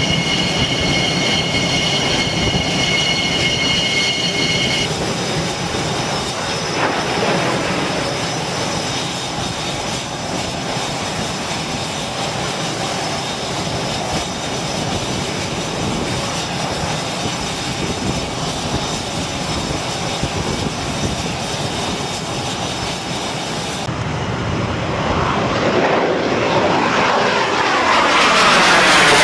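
F/A-18 Hornet jet engines on an aircraft carrier flight deck: a high steady turbine whine for the first few seconds, then dense steady jet noise. Near the end a jet passes overhead, growing louder with sweeping pitch.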